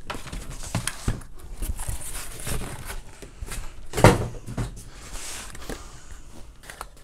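Cardboard packaging being handled: rustling and scraping of cardboard flaps and sheets with scattered light knocks, and one louder bump about four seconds in as a flat cardboard box meets the table.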